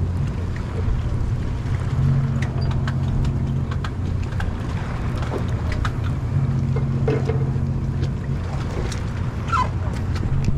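Boat engine running with a steady low hum, under wind and scattered sharp clicks.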